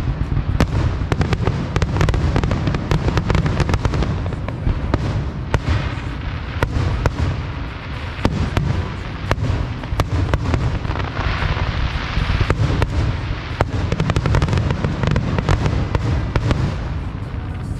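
Fireworks display: a dense run of sharp bangs and cracks over a continuous low rumble of booms, with a stretch of hissing crackle about eleven seconds in.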